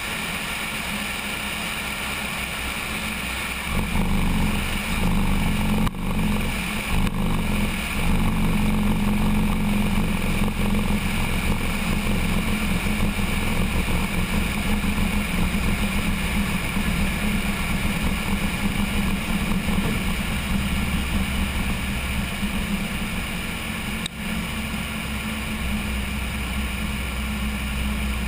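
Cessna 172's engine and propeller running during the roll along the runway, heard from a camera on the wing with wind noise. About four seconds in the sound gets louder and rougher, with rattling from the camera mount on the ground, and it eases off near the end as the aircraft slows.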